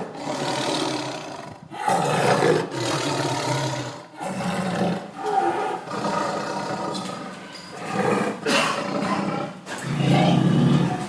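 Tiger roaring: a series of loud roars and growls, each one to three seconds long, with short breaks between them.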